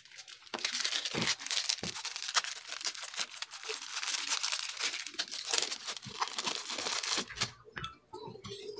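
Plastic bag crinkling and rustling as it is handled, a dense run of crackles that starts about half a second in and stops about a second before the end.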